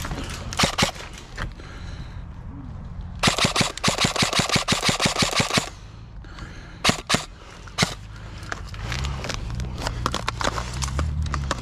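Airsoft electric rifle, a Krytac Trident MK2 SPR, firing. There are a couple of shots near the start, then a rapid string of about fourteen shots over two and a half seconds, then three more single shots.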